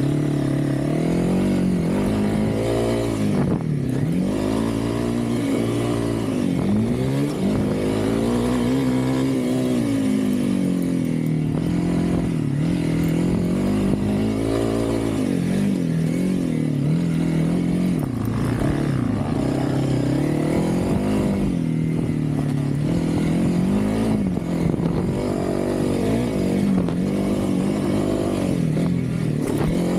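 Honda CRF300L's single-cylinder four-stroke engine revving up and easing off again and again, every couple of seconds, as it is ridden hard around a dirt motocross track. It is heard from on the bike.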